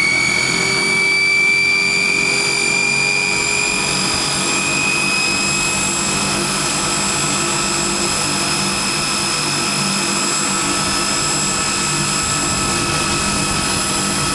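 Rolls-Royce Dart turboprop of a Hawker Siddeley 748 running after start-up, its propeller turning. The engine's high-pitched whine climbs slightly in pitch over the first few seconds, then holds steady over a low rumble.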